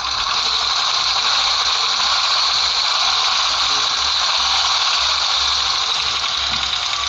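A car engine running steadily, heard close up as a loud, even high hiss with fine rapid ticking in it. The owner takes the ticking on the warm engine for knocking from the hydraulic valve lifters or the valves themselves.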